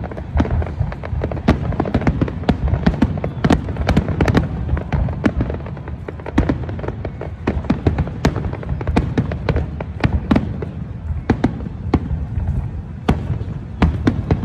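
Aerial fireworks display: a dense barrage of shell bursts, several sharp bangs a second over a continuous low rumble of reports and echoes.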